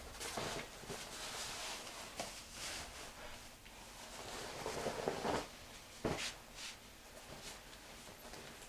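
Clothes rustling and shuffling as a person changes clothes, with a couple of sharp knocks, the clearest about six seconds in.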